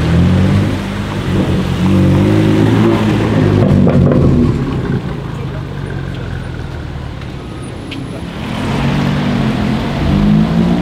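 BMW M4's twin-turbo straight-six exhaust accelerating away, the note rising through the revs in the first few seconds and then fading. Toward the end a Ferrari F430's V8 builds up and revs as it pulls into the street.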